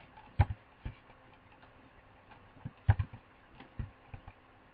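Sharp, scattered clicks of a computer mouse and keyboard as commands are entered: a quick pair about half a second in, another click soon after, then a cluster of clicks around three to four seconds in.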